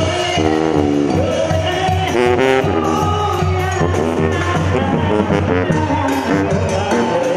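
Live Mexican banda music: a brass band with sousaphone bass, trumpets and trombones playing a lively piece.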